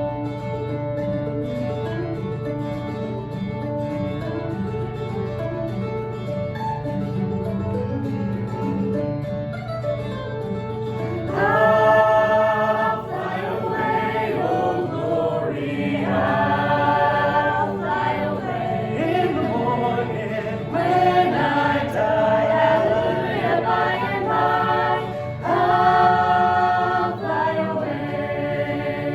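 Gospel hymn music: guitar playing, with singing voices coming in about eleven seconds in and carrying on in phrases.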